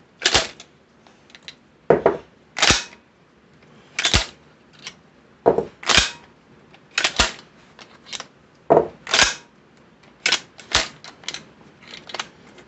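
Citadel PAT 12-gauge pump-action shotgun being racked by hand: sharp metallic clacks of the slide going back and forward, mostly in pairs, every second or two, cycling shells out of the action one after another. The action is being worked to test feeding and ejection after its sticky chamber was polished.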